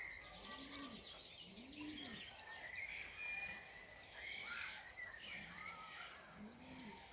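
Common starlings calling: a fledgling's raspy, buzzy begging calls, mixed with short whistled and chirping notes. A pigeon coos low in the background a few times at the start and again near the end.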